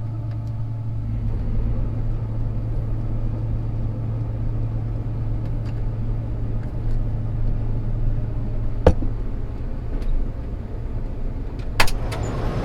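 Combine harvester running during a test start of its machinery: a steady low hum with a deeper rumble filling in about a second in. Two sharp knocks in the second half, about three seconds apart.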